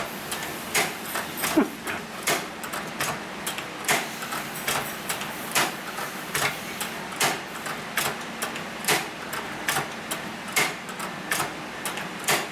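Hand-crank leather sewing machine stitching slowly: a sharp mechanical click at each stitch, a little more than one a second, with lighter ticks between.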